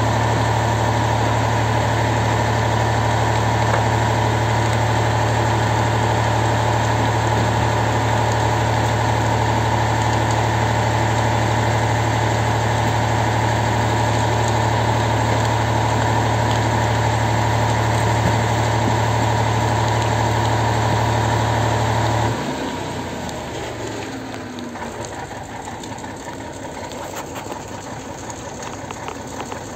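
An engine running steadily, a loud even drone that cuts off abruptly about 22 seconds in, leaving a quieter, uneven background noise.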